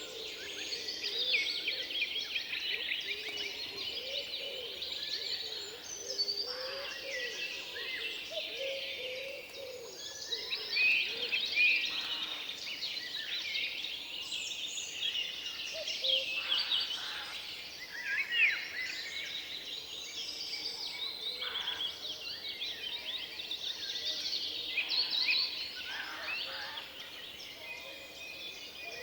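Forest songbird chorus: many birds singing at once in overlapping chirps and trills, continuous throughout.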